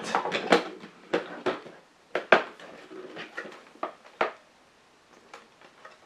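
Water tank of an OMISOON compact dehumidifier being fitted back into the unit: a run of plastic knocks and clicks over about four seconds.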